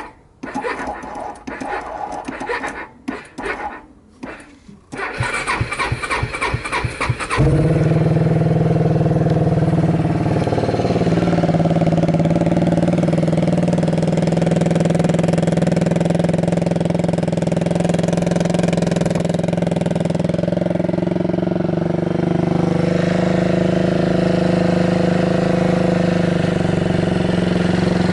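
Yamaha Majesty 250 scooter's single-cylinder four-stroke engine being started: a few short stop-start turns of the starter, then a steady crank, and it catches about seven seconds in and settles into a steady idle that wavers slightly now and then, with no abnormal noises.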